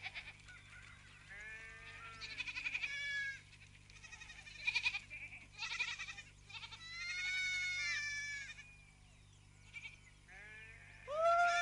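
A penned flock of goats and sheep bleating again and again, several animals calling over one another at different pitches with quavering cries. A louder bleat comes near the end.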